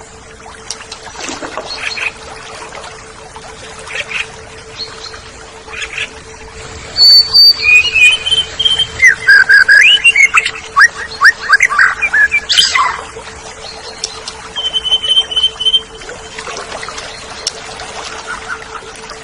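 Oriental magpie-robin (kacer) singing: scattered single chirps, then a loud six-second run of varied whistles and rapid trills in the middle, and a held whistle near the end. A steady low hum sits underneath.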